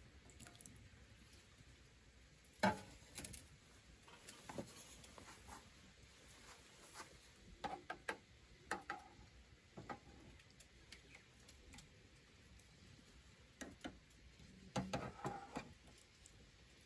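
Light clinks and knocks of a metal ladle against a steel pan and lid while pork miso soup is ladled into a wooden bowl, with small splashes of the soup. One sharper knock comes about three seconds in, and quick runs of clinks come near the middle and near the end.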